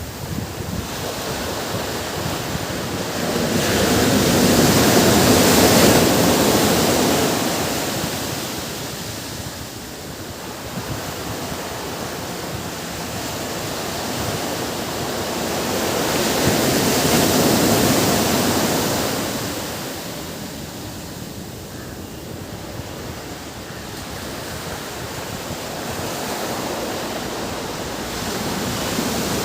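Ocean waves washing onto a beach: a steady rush of surf that swells and fades in slow surges, cresting about five seconds in and again about twelve seconds later, with another building near the end.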